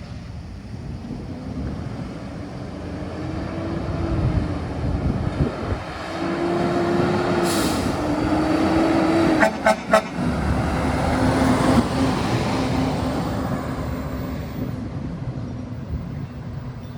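Garbage truck's diesel engine running and pulling away, its pitch gliding up and down. Air brakes hiss briefly about seven and a half seconds in, then the horn gives quick short toots about ten seconds in.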